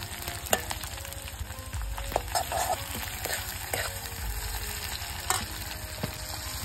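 Sliced onions and snail meat sizzling in hot oil in a metal kadai, with a steel spoon stirring and clinking against the pan several times.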